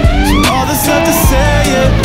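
Background music: a song with a steady beat and a melody that glides up and down.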